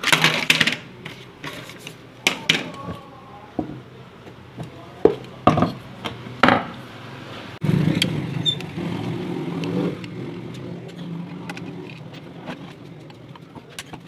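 Clicks and knocks as a ceiling fan motor's cover and housing screws are handled and worked with a screwdriver. A steady low rumble sets in a little past halfway and fades toward the end.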